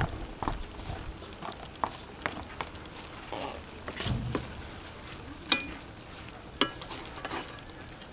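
Wooden utensil stirring and tossing leafy greens in a metal wok: scattered clacks and scrapes, with two sharper knocks against the pan about five and a half and six and a half seconds in that ring briefly.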